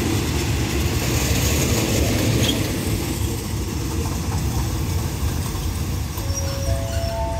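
Passenger coaches of a train rolling along a station platform: a steady low rumble of wheels on rails. Near the end, a few steady tones start one after another.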